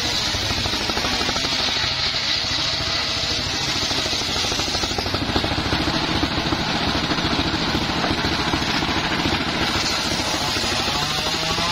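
Homemade table circular saw running steadily, its blade spinning with a dense mechanical drone and fine rapid pulsing, mostly free between cuts on teak logs.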